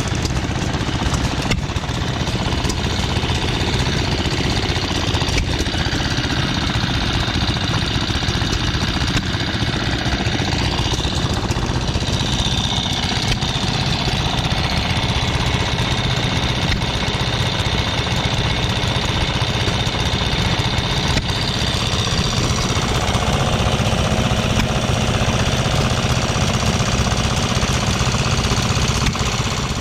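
Small antique gas engine running steadily.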